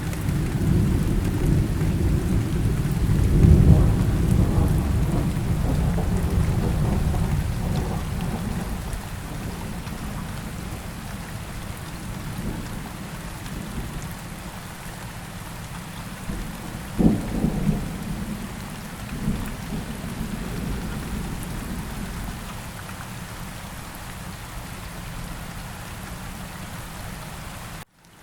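Steady rain falling during a thunderstorm. A long rolling thunder rumble swells in the first few seconds and slowly fades, and a sharper thunderclap cracks about 17 seconds in. The sound cuts out briefly near the end.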